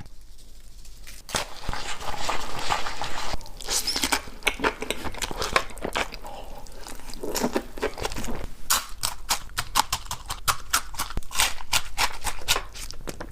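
Close-up eating sounds: chewing with a quick, irregular run of sharp crunchy clicks, busiest in the second half.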